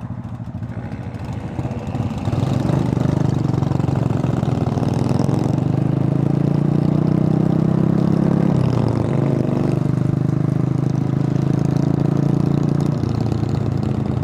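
Buell Blast motorcycle's single-cylinder engine running under throttle on the road, getting louder about two seconds in, its pitch dropping and picking up again a little past halfway, as at a gear change.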